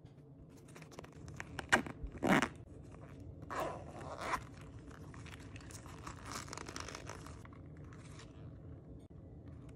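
Hands handling a miniature toy backpack with a shiny vinyl shell: a few sharp clicks and a short loud rasp, then a small zipper being pulled in two strokes, followed by softer rustling and tapping of the material.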